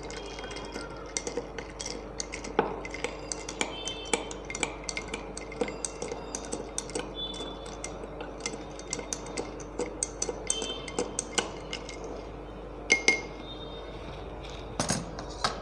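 Ice tea being stirred with a long metal spoon in a tall glass mug full of ice: a steady run of quick clinks and rattles of ice and metal against glass, with a couple of louder clinks near the end. A steady low hum runs underneath.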